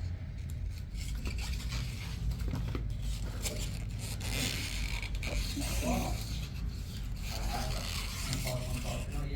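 Scratchy rubbing of a child colouring a colouring-book page, the strokes swelling and fading over a steady low hum.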